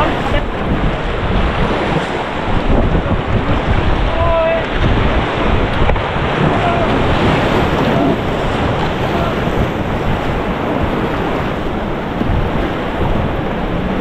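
Ganges white-water rapids rushing and splashing around an inflatable raft, with wind buffeting the microphone.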